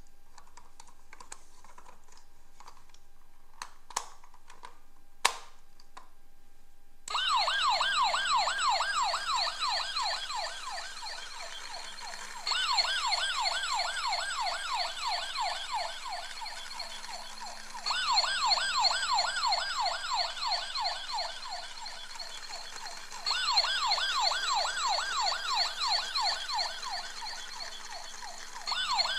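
Electronic siren from a battery-powered toy police car, a rapid up-and-down warble sweeping several times a second. It comes in about a quarter of the way in and repeats in bursts of about five seconds, each loudest as it restarts, over a low steady hum. Before it come a few sharp clicks of the toy being handled.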